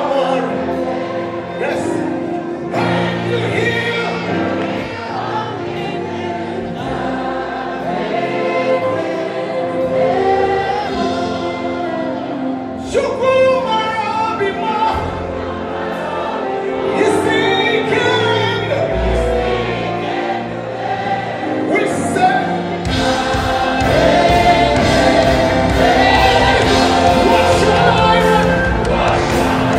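Live gospel music: a male lead singer with a backing choir over a band. About three quarters of the way in the accompaniment fills out and the music gets louder.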